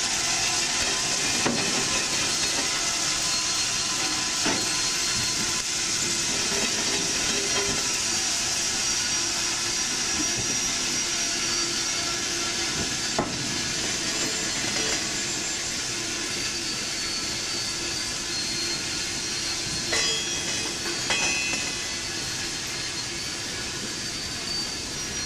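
Railcars rolling slowly past, with a steady rushing hiss of gravel ballast running out of a hopper car's gates onto the track. The hiss fades over the second half, with a few sharp metallic clanks, the loudest about 20 seconds in.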